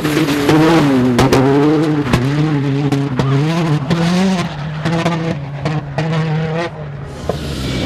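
Rally car engine revving hard, its pitch rising and dropping over and over as the throttle comes on and off, with several sharp cracks from the exhaust among the revs.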